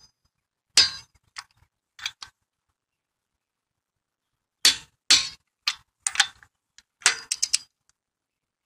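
Click-type torque wrench with a socket on car lug nuts: a series of sharp metallic clicks and clanks, several in quick succession about seven seconds in. The wrench clicks when a nut reaches its set torque of 80 ft-lb.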